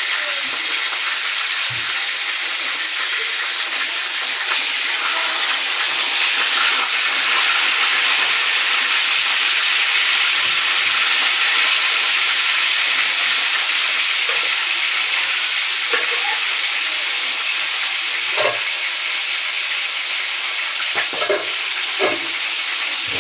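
Fish frying in hot oil in a wok: a steady sizzle, with a few soft knocks near the end.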